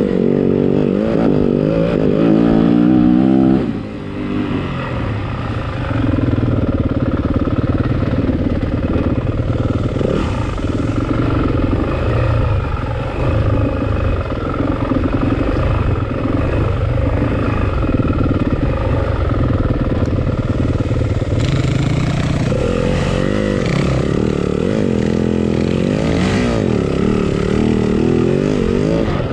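Yamaha WR-F four-stroke enduro motorcycle being ridden, the revs climbing hard for the first few seconds, then easing off briefly about four seconds in. It carries on at varying throttle, with the engine pitch rising and falling again in the last few seconds.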